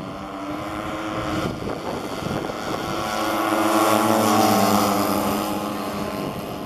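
Four 35cc two-stroke gasoline engines of a large radio-controlled Super Constellation model running together on its take-off run. The sound grows louder as the model passes close, loudest about four to five seconds in, then fades a little.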